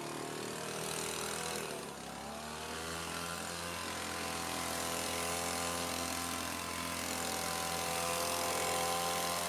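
Engine of a Kasei leaf blower running steadily; its pitch dips briefly about two seconds in, then climbs slowly as the throttle comes up.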